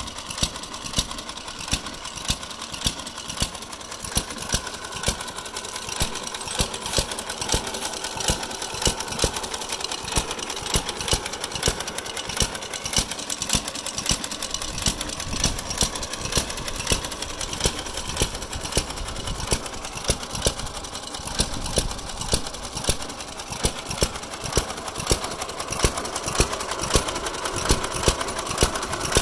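Ideal Model R hit-and-miss engine on a vintage Ideal reel lawn mower running: a fast, even clatter of mechanical ticks, with a louder firing bang about once a second as it fires and then coasts. Near the end the bangs come a little closer together.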